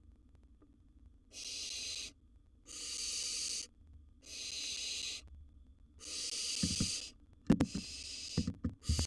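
Barn owl nestlings' rasping begging hiss ("snoring"): hiss bursts just under a second long, repeating about every second and a half. From about two-thirds in, sharp knocks and scuffs of movement on the nest box floor join them and are the loudest sounds.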